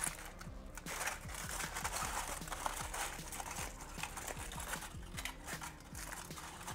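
Aluminium foil crinkling and crumpling in irregular bursts as it is wrapped and pressed around a motorcycle exhaust pipe.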